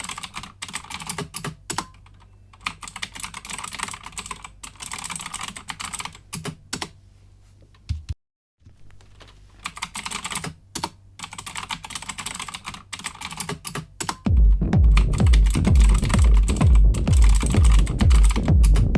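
Rapid computer-keyboard typing, runs of clicking keystrokes broken by short pauses. About 14 seconds in, loud electronic music with a heavy, steady beat starts.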